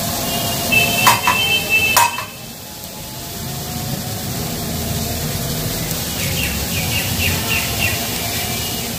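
Steady sizzling of oil around banana flower pakoras shallow-frying in a pan. A few sharp clicks with a brief high tone come about one to two seconds in, and a run of about six short, falling high chirps near the end.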